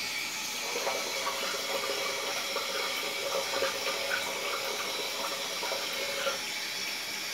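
Water running from a tap into a bathroom sink, with splashing as a person rinses their face under it.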